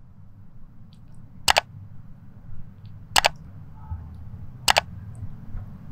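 Mouse-click sound effects of an animated subscribe button: three sharp double clicks about a second and a half apart, over a steady low rumble.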